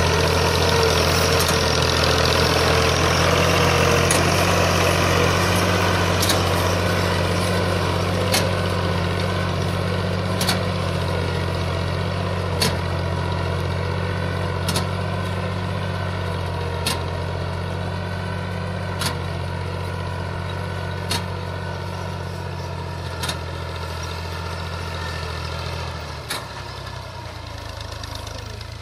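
Fiat 480 tractor's three-cylinder diesel engine running steadily as it pulls a seed drill, growing fainter as it moves away. Sharp clicks repeat about every two seconds.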